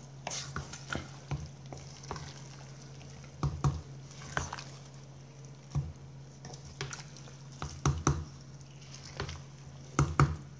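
Wooden spoon stirring rice and beans in a steaming aluminium pot, giving irregular knocks and scrapes against the pot, over a steady low hum.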